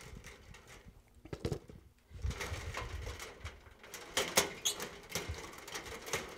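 Wire cutters snipping wires free at a fluorescent light fixture's ballast: a scatter of sharp clicks, several close together in the second half, among the rustle and bumps of wires and a plastic lamp holder handled against the sheet-metal fixture.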